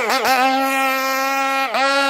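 Modified Zenoah G320PUM two-stroke petrol engine of a radio-controlled racing boat running at high revs, a steady high-pitched buzz. The revs dip and pick back up briefly at the start and again near the end.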